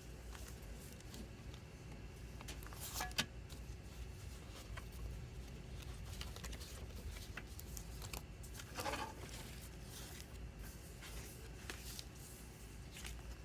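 Hands handling CD packaging: soft plastic and paper rustling with scattered light clicks, a sharp click about three seconds in and a longer rustle near nine seconds.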